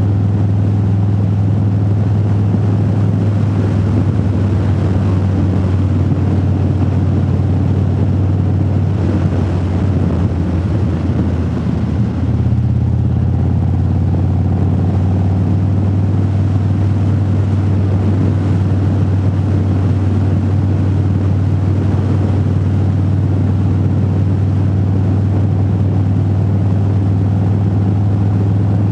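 Motorcycle engine running steadily at cruising speed, heard from inside the rider's helmet. The engine note eases for a moment about ten seconds in and picks back up a couple of seconds later.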